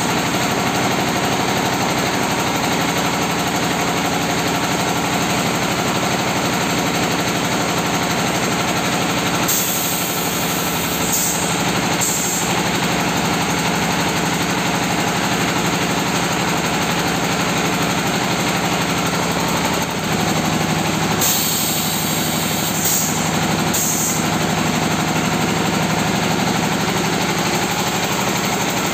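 Red-brick press machine (MH3 Series) running steadily: a constant motor drone with fast rhythmic mechanical clatter. Brief bursts of high hiss come twice, about ten seconds in and again about twenty-two seconds in.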